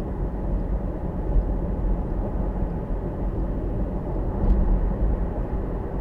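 Steady road and engine rumble of a car being driven.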